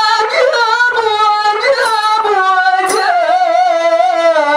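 A solo voice singing a qaswida in long, ornamented held notes that bend and slide, the melody drifting lower in pitch over the phrase.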